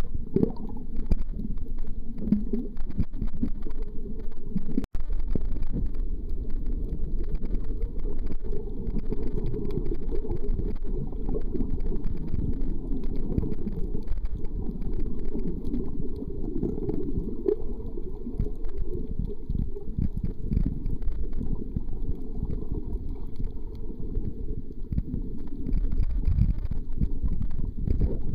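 Muffled underwater rumble of water moving around a camera in its waterproof housing: a steady low noise with a faint crackle above it. It cuts out for a split second about five seconds in.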